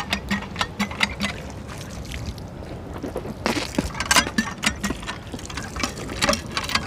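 Hand pump being worked: the metal handle clanks and water pours and splashes from the spout, running over cupped hands. The clanks and splashes come irregularly, busiest a little past halfway.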